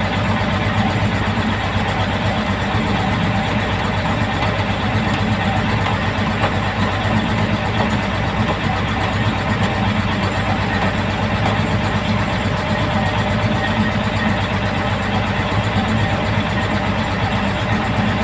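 A large engine idling steadily, with no change in speed.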